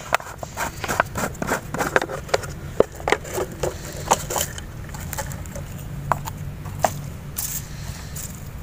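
Irregular light clicks and scrapes of movement over dry leaf litter and gravel, dense for about the first four seconds and then sparse, over a low steady hum.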